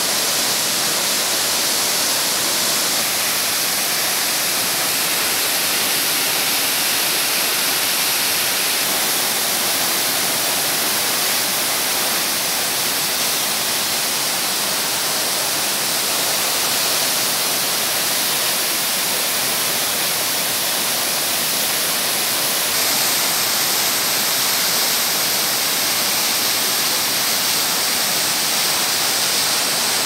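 A tall waterfall making a steady rush of falling water, with no break or change.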